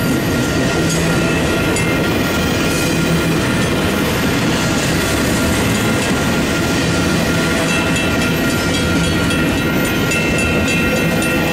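Double-stack intermodal freight train rolling steadily past: a continuous loud rumble of steel wheels on rail, with clicking over the rail joints and a few thin, steady high-pitched tones above it.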